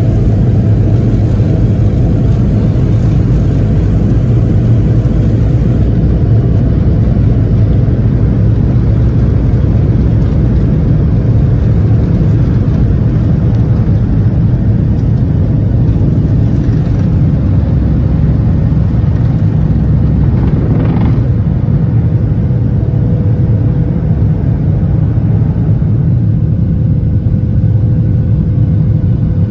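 Airliner cabin noise: a loud, steady low drone from the jet engines and airflow, with a steady hum at one pitch running through it.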